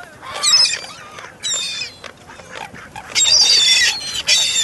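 Canada geese honking harshly in three bouts: a short one about half a second in, another at about a second and a half, and a longer, louder one from about three seconds in.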